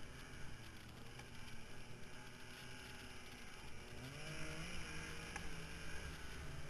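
Yamaha Nytro snowmobile's four-stroke triple running while riding. The engine revs up about four seconds in and holds the higher speed.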